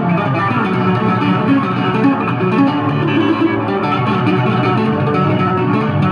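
Solo Yamaha electric bass guitar, played through a loud live rig: a continuous stream of fast notes, fretted and tapped with both hands on the fingerboard.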